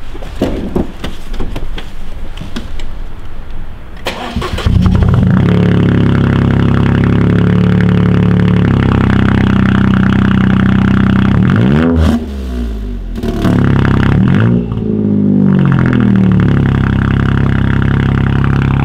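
Tuned Toyota GR Yaris 1.6-litre turbocharged three-cylinder with an Aulitzky aftermarket exhaust cold-starting about four and a half seconds in, after a few clicks and knocks. It settles into a loud, steady high cold idle, then is revved briefly twice, the pitch rising and falling, before returning to idle.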